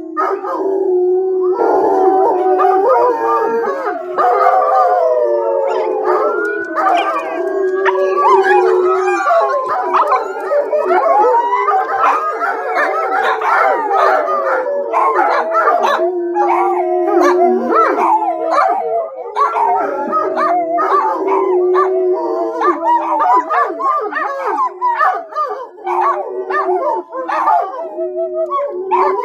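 A pack of dogs howling together, many long overlapping howls rising and falling in pitch at once. Short barks and yips mix in, more often in the second half.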